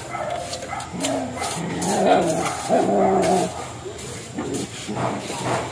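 A dog giving long, pitched cries, loudest about two seconds in, with light taps and scrapes of a steel trowel on wet cement.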